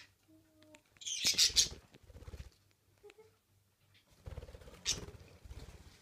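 Pet budgerigar right at the microphone, giving short chirps with fast rubbing and pecking taps against it, in two bouts: about a second in and again from about four seconds in.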